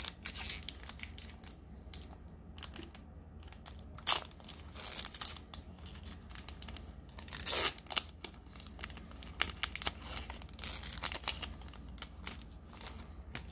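Foil wrapper of a Pokémon trading card booster pack being torn open and crinkled by hand. Irregular crackling, with a few louder rips along the way.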